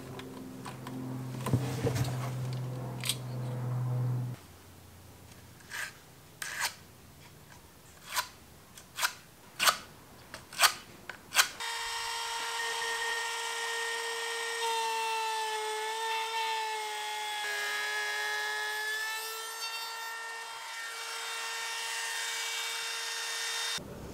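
A Milwaukee cordless compact router runs with a steady high whine for about twelve seconds while cutting a groove in plywood. Its pitch sags slightly under load partway through, then it cuts off abruptly near the end. Before it there is a low steady hum for about four seconds, then a string of sharp clicks and knocks.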